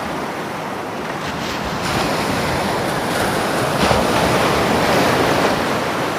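Ocean surf: a continuous rush of waves that swells about two seconds in, is strongest around the middle, and eases slightly near the end.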